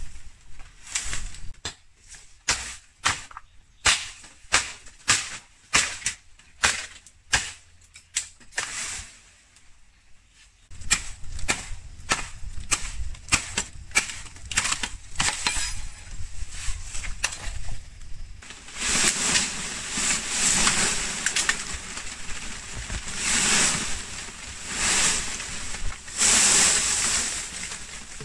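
A blade chopping bamboo: sharp, separate strokes about two a second for several seconds, then a spell of longer rustling noises.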